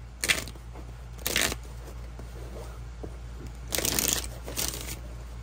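A deck of oracle cards being shuffled by hand in four short bursts: one just after the start, one about a second and a half in, and two close together near four seconds.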